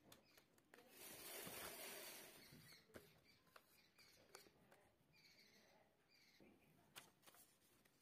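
Faint handling of a sheet of printer paper on a wooden table: a soft rustle as it is slid and smoothed, and a few light taps and crinkles as it is creased.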